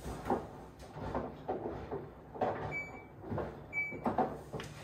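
Laundry being pulled out of a front-loading washing machine's drum: irregular fabric rustling and soft knocks. Two short electronic beeps, about a second apart, come in the middle.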